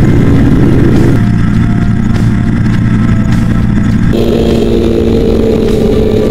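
Off-road vehicle engine running at speed, loud and steady. Its pitch changes abruptly about a second in and again about four seconds in, then falls slightly.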